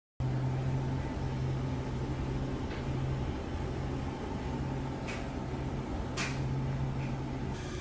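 Steady low machine hum with a few faint ticks.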